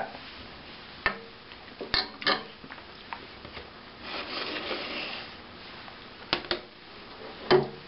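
Square ceramic soup bowls being handled on a metal baking sheet: a few sharp knocks and clinks as bowls are picked up and set down, and a bowl scraping as it slides across the tray about halfway through.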